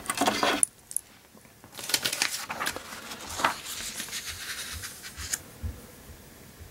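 Handling noise on a wooden table: the steel bracelet of a Rolex Daytona clinks as the watch is picked up, then a sheet of paper rustles and slides as it is laid down and pushed into place, with a few sharp clicks among the rustling.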